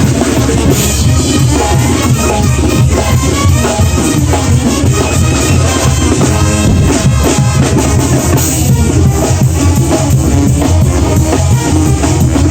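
Two Mexican bandas playing together: loud, steady brass-band music over a driving drum and percussion beat.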